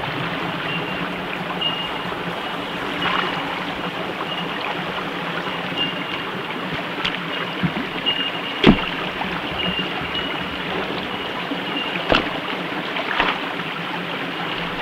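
Shallow creek water running steadily over rocks, with a couple of sharp knocks, about nine and twelve seconds in, as stones are set down to build a small dam.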